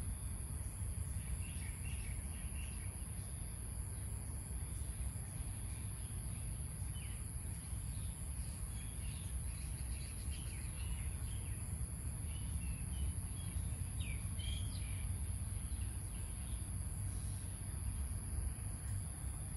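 Insects droning at a steady high pitch, with small birds chirping on and off, most of the chirps in the middle stretch, over a low steady rumble.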